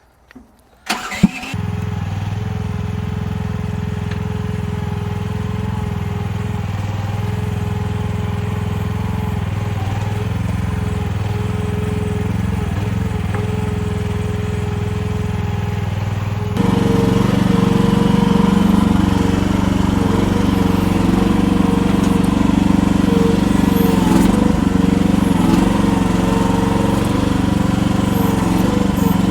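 Chinese mini excavator's engine cranking and starting about a second in, after a sharp click, then idling steadily. About halfway through it jumps to higher revs and runs louder and steady.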